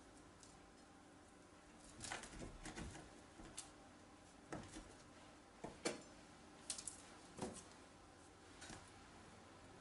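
Faint kitchen-knife work: a knife cutting the crust edge off a sponge cake on baking paper, with soft paper rustles and a few light clicks. The sharpest click comes about six seconds in.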